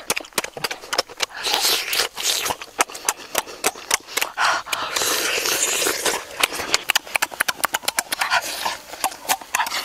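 Close-up eating sounds: rapid wet chewing and lip-smacking, with bouts of sucking and slurping, as people eat cooked eggs with their hands.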